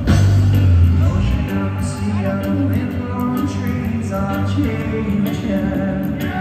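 Reggae band playing a song live, heard from the crowd, with a singer's voice over the band; the heavy bass drops away about a second and a half in.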